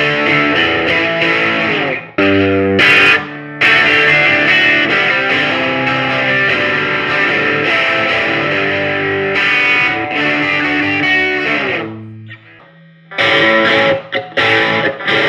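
Electric guitar played through the freshly repaired 1966 Supro Thunderbolt, a valve combo amp with a 15-inch speaker: sustained notes and chords. There is a short break about two seconds in, and a note dies away near twelve seconds in before short, choppy chords resume.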